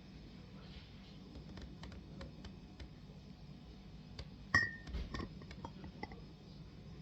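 A single sharp glass clink with a brief ringing tone about four and a half seconds in, followed by a few lighter knocks, over faint scattered ticking and a low hum.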